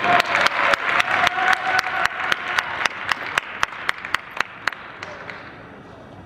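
Audience applauding, with claps in an even beat of about four a second that fade away and stop about five seconds in.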